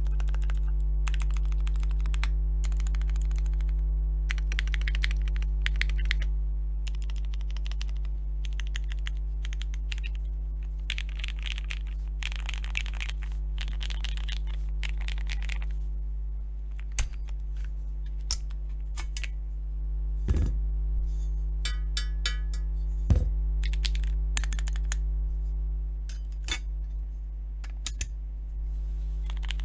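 Typing on a TKD Cycle7 custom mechanical keyboard with SP-Star Magic Girl switches. For roughly the first half the keystrokes come in fast, dense runs; after that the presses are slower and scattered, with a few heavier, deeper strikes. A steady low hum runs underneath.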